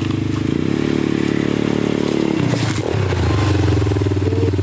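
ATV engine running under way: it speeds up about half a second in, drops back near the middle with a brief clatter, then runs steadily.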